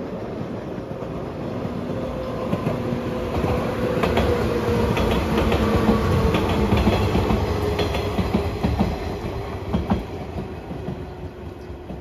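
A JR 115 series electric train passes close by. Its wheels clatter over rail joints in quick clicks while the motor and gear hum drops slightly in pitch. The sound is loudest about halfway through, then fades as the train moves away.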